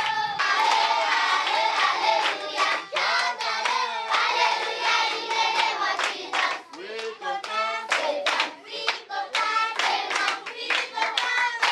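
A group of children singing together and clapping their hands along with the song, the claps coming repeatedly throughout.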